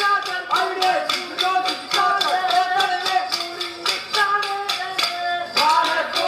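Kolkali stick dance: a singing voice carries the song's melody while the dancers' short wooden sticks clack together in a quick, regular rhythm, about four strikes a second.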